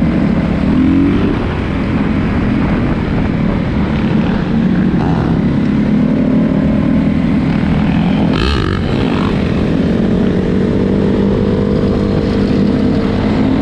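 Dirt bike engines running during a group ride, loud and steady, with a short rise in pitch about a second in. A brief sharp sound cuts in about eight and a half seconds in, and a steady higher engine tone holds through the last few seconds.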